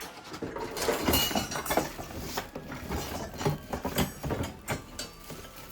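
Plastic parts and packaging being handled while an animatronic prop is unpacked: irregular rustling, crinkling and knocks of pieces against each other and the box.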